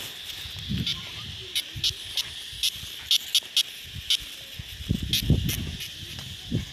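Outdoor ambience: a steady high-pitched hiss with scattered sharp ticks, and a few low rumbles about five seconds in.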